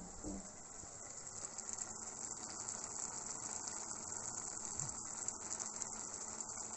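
Pot of wheat rice with ground meat boiling on a gas stove: a steady hiss of bubbling with a fine crackle.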